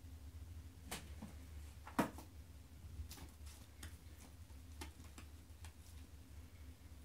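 Irregular light clicks and taps from a kitten batting and pouncing on a feather wand cat toy on carpet, with one sharper knock about two seconds in, over a low steady hum.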